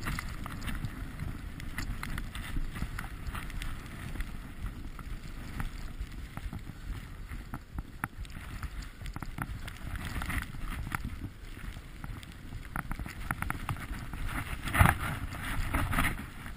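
Skis sliding and scraping over snow, with wind rumbling on the camera's microphone. A sharper, louder scrape comes near the end.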